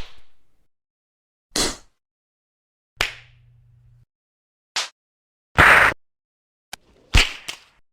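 A series of face-slap sound effects played one after another, each a short, sharp smack with silence between, about one a second; two come in quick succession near the end.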